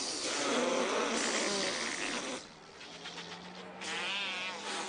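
Fart noises made by blowing against a cupped hand: a long wet sputtering one, then after a pause a shorter warbling, buzzing one near the end.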